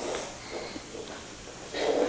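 Wooden toy train track pieces being handled and fitted together on a wooden floor: light scraping and knocking of wood on wood, with a louder clatter near the end.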